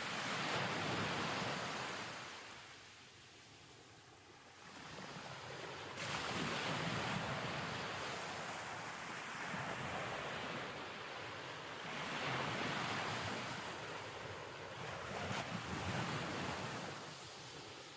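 Rushing surf-like noise of waves, swelling and fading in long surges every few seconds, with a dip in the first few seconds and one surge coming in abruptly about a third of the way through.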